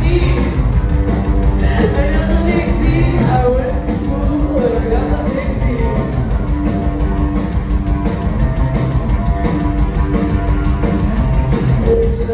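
Live indie rock band playing: electric guitars, bass and a drum kit, with a woman singing over a repeating bass line. Recorded from among the audience in a ballroom venue.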